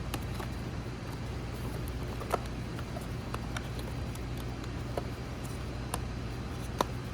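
Scattered light clicks and taps as filled food containers are closed, over a steady low hum.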